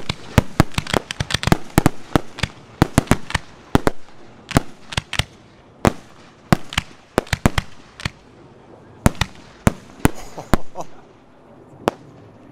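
Aerial firework shells bursting as a rapid run of sharp bangs, dense through the first few seconds, then thinning to single bangs every half second or so, with one last lone bang near the end.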